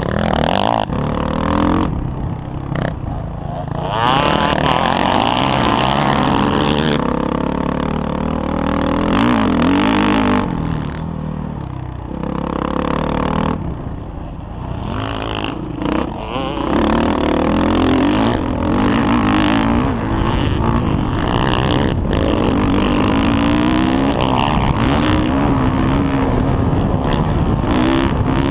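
Dirt bike engine revving up and down with the throttle while riding a motocross track, heard close from a camera mounted on the bike. The pitch rises and falls throughout, with several brief drops as the rider backs off the throttle.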